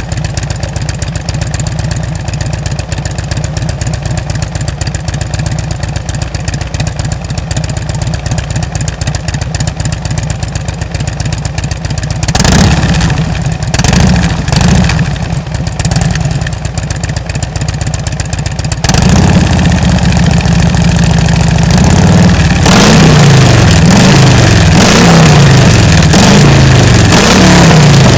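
2007 Harley-Davidson Ultra Classic's Twin Cam 96 V-twin running through Rush slip-on mufflers with 1.75-inch baffles: a steady, lumpy idle for about twelve seconds, then a few short throttle blips. Near the end it is held at higher revs and revved again and again, each rev rising and falling.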